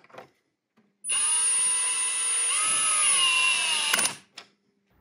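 Power tool whirring for about three seconds, tightening the battery terminal as the truck's battery is reconnected; its whine bends up and back down in pitch partway through, then stops.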